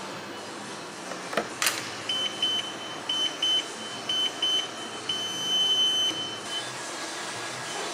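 Cybex treadmill console beeping as its buttons are pressed: short high beeps in quick twos and threes, then one longer beep lasting about a second. A knock or two comes shortly before the beeps.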